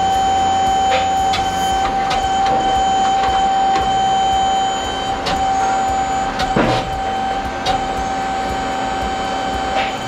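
Sawmill hydraulics whining steadily as the loading arms lift a large sycamore cant onto the mill, with a few knocks of log on steel.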